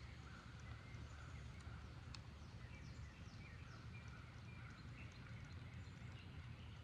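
Quiet outdoor ambience: a steady low rumble with faint bird calls, short chirps and a run of quick falling whistles.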